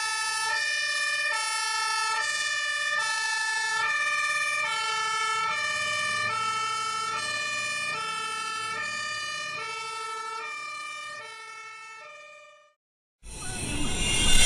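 German fire engine's two-tone siren, alternating steadily between a lower and a higher pitch and slowly fading out near the end. It cuts off suddenly and loud music starts about a second before the end.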